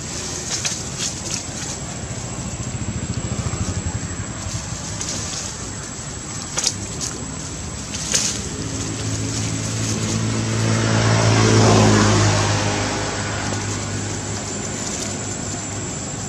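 A motor vehicle passes, its engine hum and road noise swelling to a peak about two-thirds of the way through and then fading. A thin steady high whine runs underneath, with a few sharp clicks in the first half.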